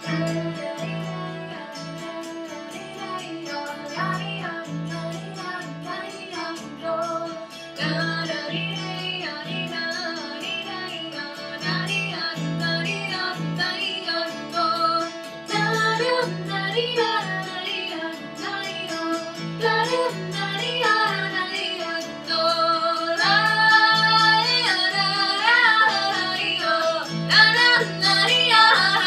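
A 15-string and a 38-string kantele, the Finnish plucked zither, playing a traditional Finnish tune over a steady held note and a repeated low note. From about halfway through, female voices sing without words, getting louder toward the end.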